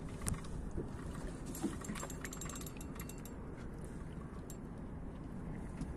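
Steady low wind and water noise aboard a small anchored boat, with a quick run of light clicks about two seconds in.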